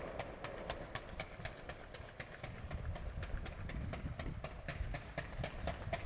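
Fireworks: fans of comets fired from the ground in quick succession, a steady run of sharp pops about four a second over a low rumble.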